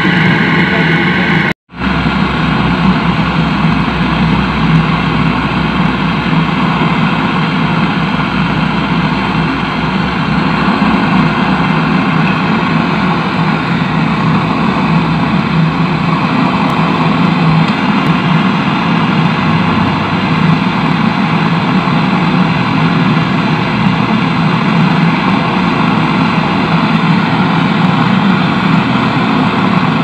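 Gas brazing torch burning steadily, a continuous rushing noise, while its flame heats and brazes a copper pipe joint at a refrigerator compressor. The sound cuts out for a split second about one and a half seconds in.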